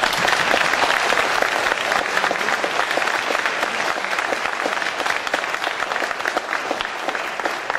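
A large audience applauding with many hands clapping, slowly easing off toward the end.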